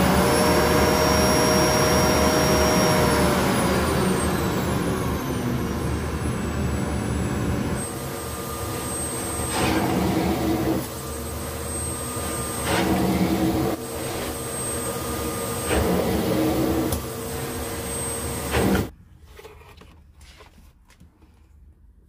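Electrolux Easybox Plus bagless canister vacuum running. Its motor whine glides down in pitch over a few seconds as the power dial is turned down. The floor nozzle is then worked over a shaggy rug, with a louder swell on each of three strokes, and the motor cuts off suddenly near the end.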